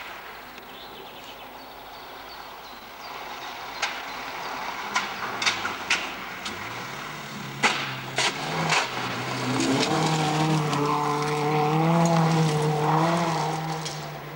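Rally car engine approaching fast and passing close, its revs rising and falling with the throttle and growing loudest as it goes by. A few sharp clicks are heard before the engine becomes loud.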